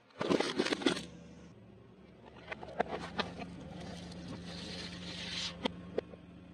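A car tyre rolling over and crushing objects. A quick burst of crackling and crunching comes just after the start as paper-wrapped packaging is flattened. A steady low hum then runs underneath, with scattered sharp cracks and snaps as the tyre presses onto a red plastic bucket.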